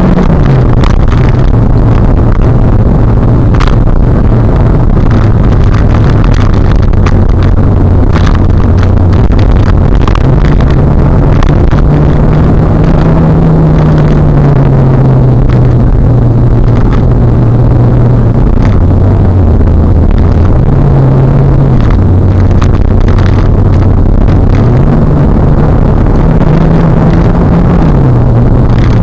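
Car driving at highway speed, heard from inside the cabin: steady road and wind noise under a low engine drone whose pitch rises and falls with the throttle, climbing about 11 s and 25 s in and sinking slowly after each.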